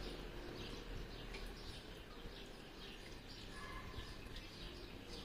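Water trickling steadily from a small two-tier flowerpot fountain, with a bird chirping repeatedly in short high notes about twice a second.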